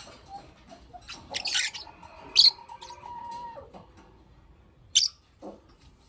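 Pet lovebirds chirping: a few short, sharp, high calls spaced a second or two apart, with a quick cluster of them about a second and a half in.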